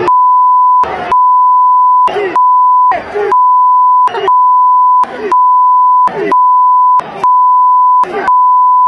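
A loud, steady censor bleep at one pitch, laid over insulting chants and cut about once a second by short gaps in which the voices of the crowd come through.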